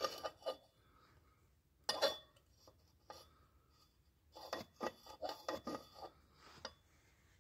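Metal scraping and clicking as the tractor's clutch release lever is worked by hand, its spring-steel fork rubbing on the ball-head pivot. There are a couple of scrapes near the start, one around two seconds in, and a run of quick clicks and scrapes in the second half.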